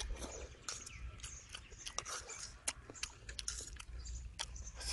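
Close-up eating of yellow noodles and fried chicken drumsticks: chewing, with many irregular sharp clicks and the fork working in the metal tray.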